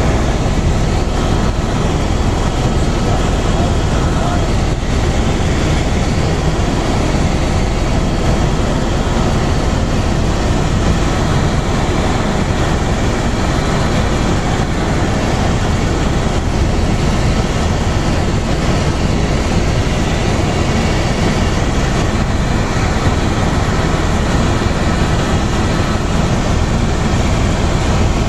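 Helicopter in flight, heard from inside the cabin: a loud, steady din of engine and rotor noise.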